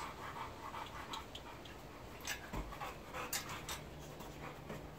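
A dog panting softly, with a few light clicks.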